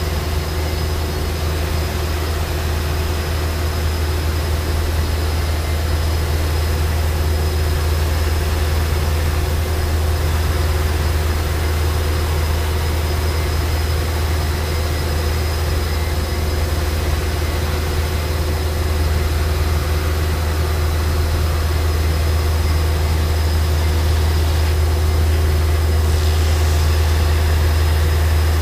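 ESCO PM III 1530 abrasive fast-wire CNC profile saw running steadily as it cuts a dense polyisocyanurate foam block: a constant low hum with a thin high whine over an even hiss.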